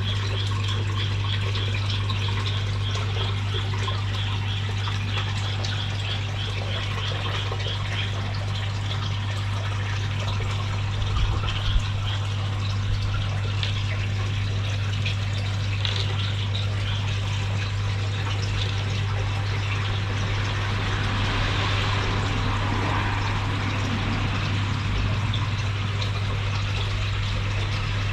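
Water circulating in a koi aquarium, trickling and splashing steadily into the tank over a steady low hum. A couple of brief knocks come about eleven seconds in.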